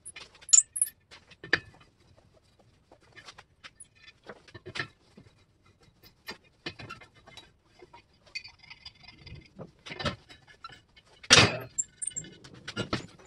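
Lug nuts being turned off a steel wheel with a long four-way star lug wrench: scattered metal clinks and taps of the wrench and nuts, with a louder clunk near the end as the wheel is pulled off the hub.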